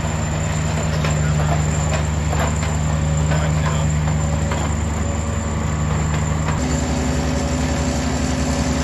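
Engine of a tracked mini piling rig running steadily, with a few light clanks in the first half; about two-thirds of the way through its pitch steps up and it runs harder.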